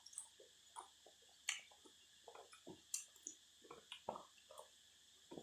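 Quiet close-up eating: wet chewing, lip smacks and small clicks from a mouthful of beef noodle soup and fresh vegetables, coming irregularly several times a second. Under them runs a faint steady high drone of cicadas.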